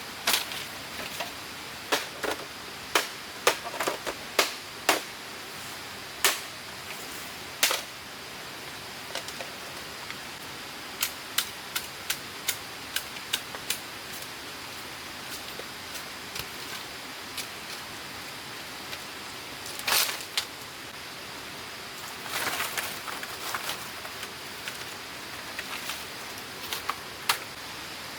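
Scattered sharp knocks and clicks, irregular and sometimes in quick clusters, over a steady even rushing noise.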